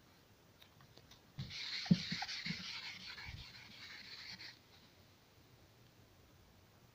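A cloth wiping marker writing off a slick-surfaced homemade whiteboard: a scrubbing hiss that starts about a second and a half in and lasts about three seconds, with a few knocks near its start, the sharpest about two seconds in.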